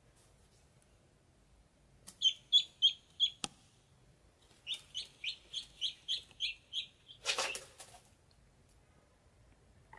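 Ducklings peeping: four loud, high peeps about two seconds in, then a run of about eight evenly spaced peeps, followed by a brief rustle.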